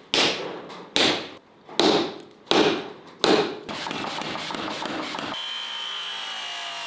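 Five hand-hammer blows on red-hot steel on an anvil, a blacksmith forging a knife blade from an old bearing, each strike ringing briefly, roughly one every three-quarters of a second. About five seconds in, the sound switches abruptly to the steady whine of an abrasive cut-off wheel cutting steel.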